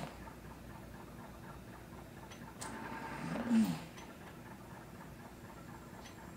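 Home mechanical ventilator delivering a breath about three seconds in: a whoosh of air with a motor tone that rises and then falls over about a second. The breaths come roughly every four seconds.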